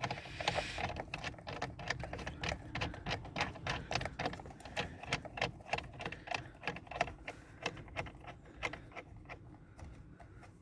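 Ratchet wrench clicking in a steady run, several clicks a second, as the steering wheel's centre bolt is driven back in and tightened.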